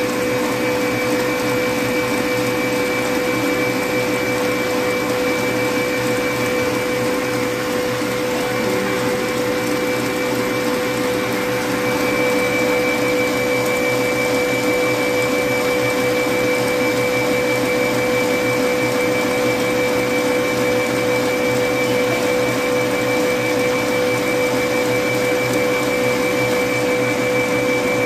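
Electric stand mixer running steadily with a constant hum and whine as its whisk beats egg whites into meringue in a stainless steel bowl; a little louder from about twelve seconds in.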